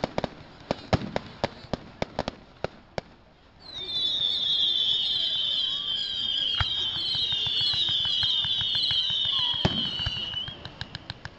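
Fireworks crackling with rapid sharp pops, then a brief lull. After that comes a chorus of many overlapping high whistles, each falling slightly in pitch, lasting about six seconds, with a couple of single bangs among them. The crackling pops return near the end.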